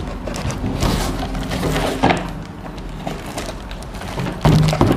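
Taped, plastic-wrapped cardboard parcel being torn and pulled open by hand: a run of crackling rips and crinkles, with a short, louder noise near the end.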